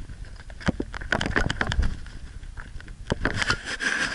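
Irregular clicks, knocks and rubbing of an action camera being jostled and swung about, over a rough noisy background.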